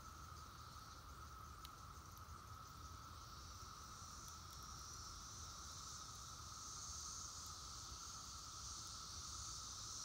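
Faint, steady drone of a Brood X periodical cicada chorus in the distance. A higher, hissing insect buzz grows louder from about halfway through.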